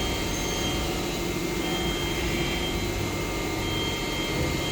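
Machine-shop equipment running with a steady hum and whir, a constant low tone under it and a faint high whine that comes and goes a few times.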